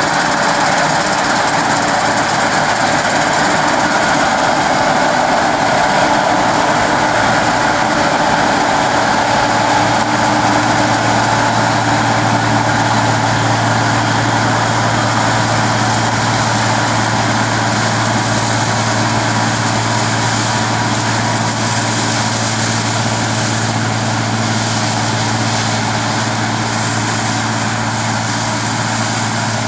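Claas Dominator 106 combine harvester running steadily. A low, even hum strengthens about ten seconds in and then holds.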